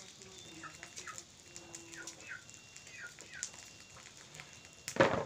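Chickens peeping: a string of short, falling chirps, several a second at times. A brief loud noise comes near the end.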